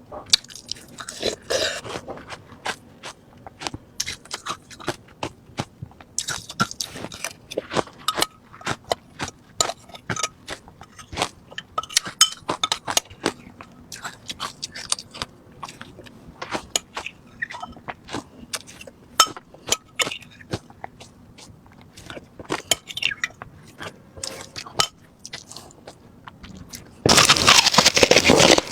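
Refrozen crushed ice being chewed close to the microphone: a run of sharp, irregular crunches and cracks. Near the end a much louder, continuous crunching sets in.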